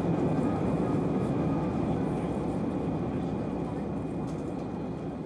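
Jet aircraft engine noise: a steady, even roar, heaviest in the low range, that slowly fades over the few seconds.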